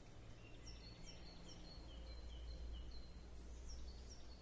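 Small songbird singing a faint run of short, high, downslurred notes, about three a second, over a low steady rumble.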